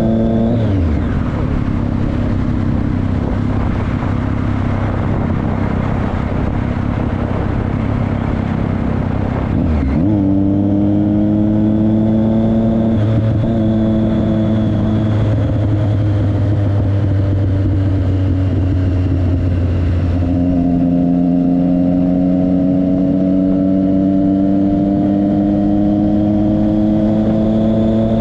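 Motorcycle engine running at highway speed, heard from the rider's seat, under heavy wind rush for the first ten seconds or so. Then the engine note comes through clearly, drops in pitch about twenty seconds in, and climbs steadily as the bike accelerates.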